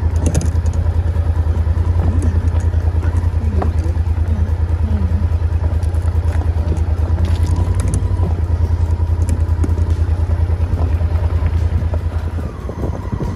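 Motorhome engine running with a low, rapidly pulsing drone, heard from inside the cab as the vehicle drives slowly along a gravel track; the drone eases near the end.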